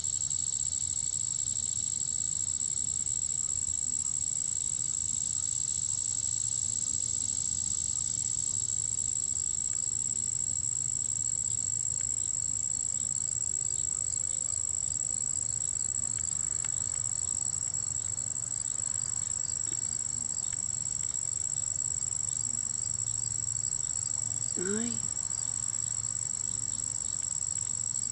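Steady chorus of insects, a continuous high-pitched trill that never breaks, with one brief rising sound near the end.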